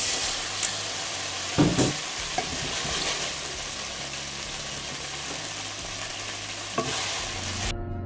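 Freshly drained pasta hissing and sizzling in a hot saucepan as it is stirred with a wooden spoon, with a couple of knocks against the pot. The hiss cuts off abruptly near the end.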